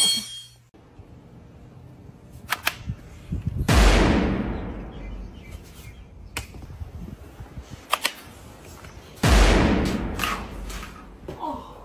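Two loud gunshot-like blasts, about five and a half seconds apart, each with a long fading tail, with a few sharp clicks in between.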